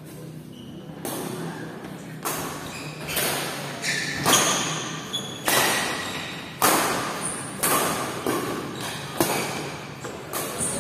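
Badminton rally: rackets hit the shuttlecock about ten times, roughly once a second, each smack echoing in a large hall.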